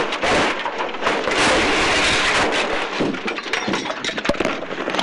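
Rally car going off the road, heard inside the cabin: a loud rushing of tyres and stones scraping under the car, then from about three seconds in a run of sharp knocks and clattering impacts from the bodywork.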